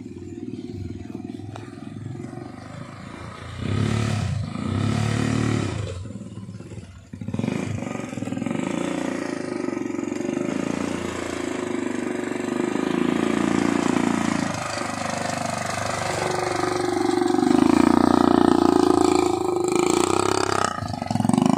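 ATV (quad bike) engines running, their pitch rising and falling as they rev. The sound grows louder through the second half and is loudest a few seconds before the end.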